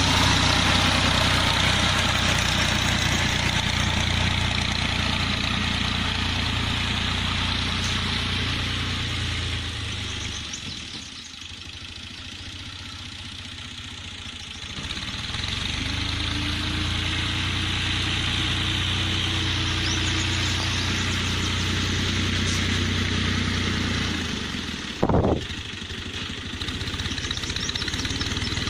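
Farm machinery engine running steadily with a low hum. It goes quieter for a few seconds midway, and there is one sharp crack near the end.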